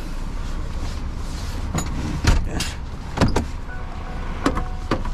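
Truck engine idling, heard from inside the cab, with a series of sharp clicks and knocks as the cab door is unlatched and pushed open.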